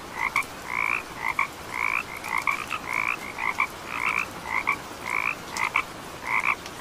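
Frogs calling: short croaking notes repeating about two or three times a second, overlapping in a steady chorus.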